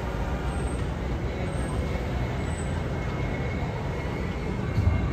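A New York City subway (6) train on elevated steel track rumbling steadily as it pulls away, with a faint high whine over the rumble.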